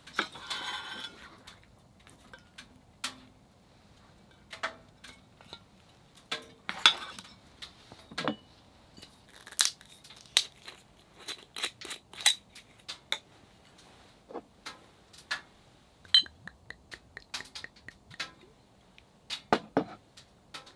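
Irregular clicks, taps and clinks of dishes and utensils being handled, some with a brief metallic or glassy ring.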